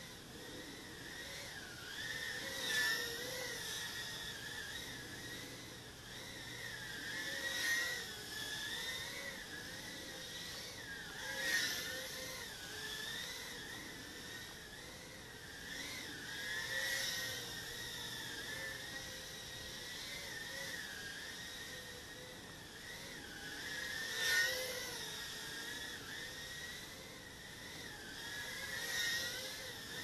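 Micro FPV drone's motors and propellers whining, the pitch wavering up and down with the throttle, with a handful of brief louder surges. Picked up by the drone's own onboard microphone over a constant hiss.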